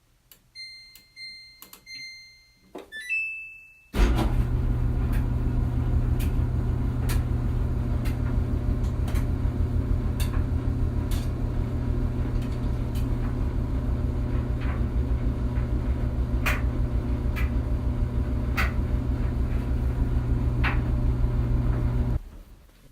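Clothes dryer: three short beeps and then a longer, higher beep from its control panel. About four seconds in, the drum starts running with a steady low hum and scattered sharp ticks, and it stops abruptly near the end.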